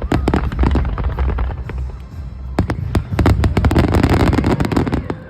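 Fireworks bursting in a rapid barrage: many sharp bangs and crackles over a low rumble, thickest in the second half.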